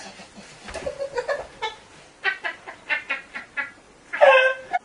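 Women laughing in short, breathy, repeated bursts, ending in a louder high-pitched squeal near the end.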